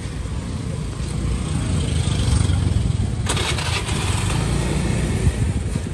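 A small engine, likely a motorbike, running close by amid street noise, with a short burst of hiss a little over three seconds in.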